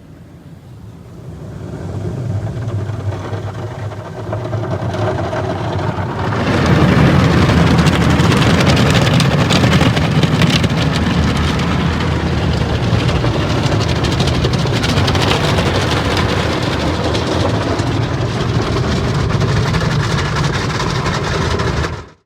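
Car driving: engine noise builds over the first few seconds, then from about six seconds in a loud, steady rush of engine, road and wind noise, which cuts off abruptly near the end.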